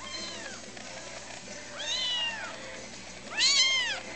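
Birman cat meowing: three separate meows that each rise and fall in pitch. The first is faint, the second comes about two seconds in, and the loudest comes near the end.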